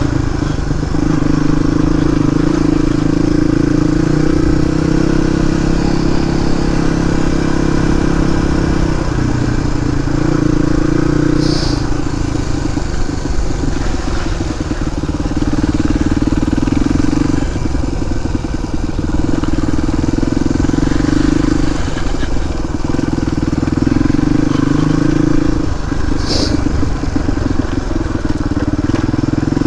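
Suzuki DR250S single-cylinder four-stroke dirt bike with a Dominator R aftermarket exhaust, running under way. The engine note holds steady for a few seconds at a time, then dips and picks up again as the throttle is rolled off and on.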